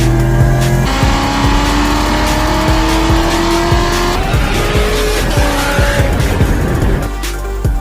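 A car engine accelerating hard, its pitch rising steadily and then falling at a gear change about four seconds in, mixed with background music.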